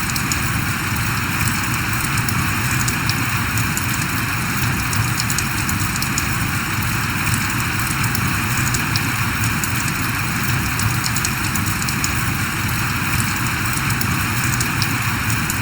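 Steady rain falling, with many close drops ticking over an even hiss and a low steady rumble.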